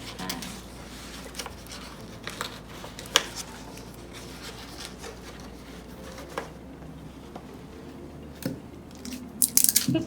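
Paper rustling and crinkling while adhesive tape is pulled and torn to tape a paper cone around a bottle, with scattered light taps and clicks, and a louder scratchy burst near the end.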